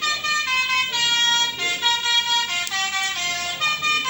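Bus telolet musical horn (Basuri type) playing a tune: a quick, continuous run of short horn notes stepping up and down in pitch.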